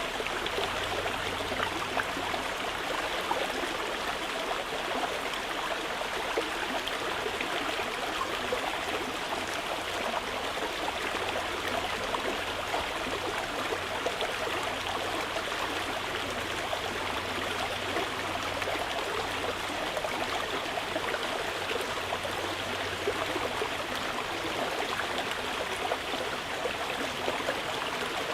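Mountain river flowing steadily over rocks: an even, unbroken rush of water.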